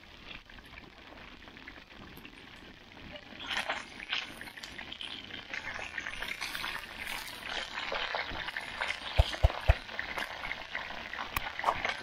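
Trout pieces frying in hot oil on a sheet pan, sizzling and crackling, the sizzle growing louder about a third of the way in. A couple of short knocks come about three quarters of the way through.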